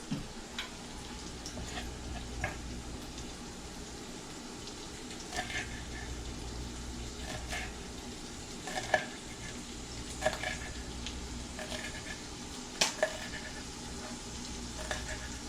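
Shrimp and garlic frying in coconut oil in a pan, a steady sizzle, with short clinks of a utensil stirring against the pan every second or so.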